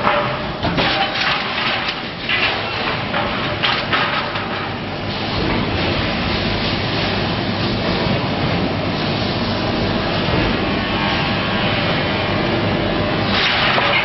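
Workshop machinery noise: irregular clanks and knocks for the first few seconds, then a steady hiss-like machine noise, with clattering returning near the end.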